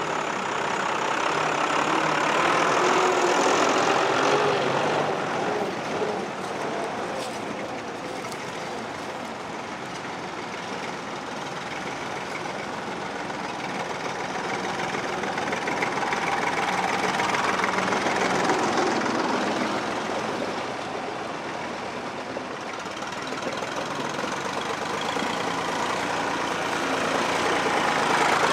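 Vintage Fordson tractor engines running as the tractors drive past one after another, the sound swelling as each one comes close and fading between them.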